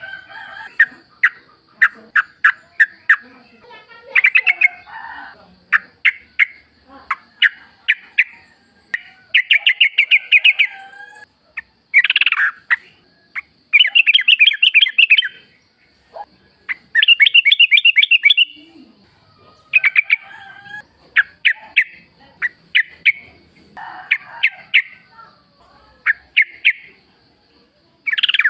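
Yellow-vented bulbuls calling: short bubbly chattering phrases, with several rapid trills lasting a second or two near the middle. A faint steady high hum runs underneath.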